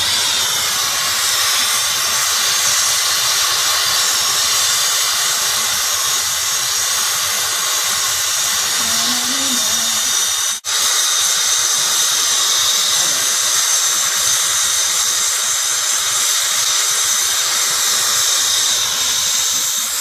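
Air-acetylene brazing torch burning with a steady hiss as its flame heats a copper refrigerant line joint, breaking off once for an instant about halfway through.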